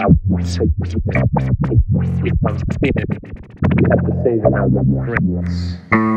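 Electronic music: a fast run of short synthesizer notes over a steady low bass, ending on a held chord near the end.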